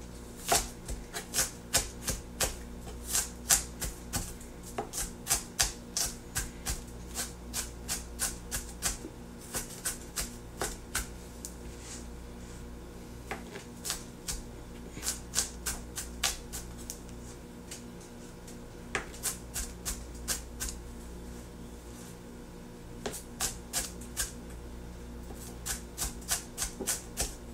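Knife chopping onions on a cutting board: runs of sharp taps, about two or three a second, broken by short pauses.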